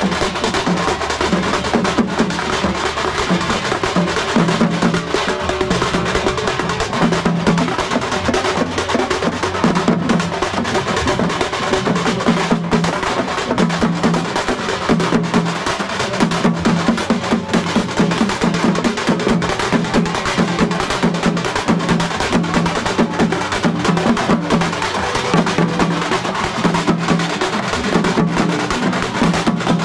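Tamil frame drums and barrel drums beaten with sticks in a fast, driving rhythm, dense rapid strokes with a low booming beat running through.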